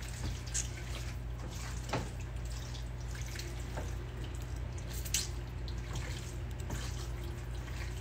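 A steady low hum with about five faint, short clicks, roughly one every second and a half.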